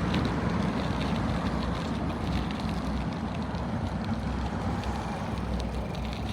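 Steady wind rushing over the microphone with rolling noise from a bicycle being ridden, and scattered light ticks and rattles.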